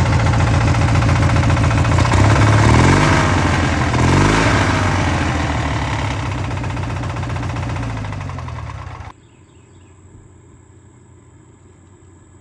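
Opposed-twin engine with a rod knock running, revved up and back down a couple of seconds in, then running on and easing off before it cuts off abruptly about nine seconds in.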